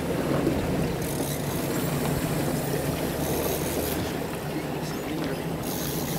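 Fishing boat's engine running steadily under way, a low hum under the rush of water past the hull, the hiss swelling and easing a few times.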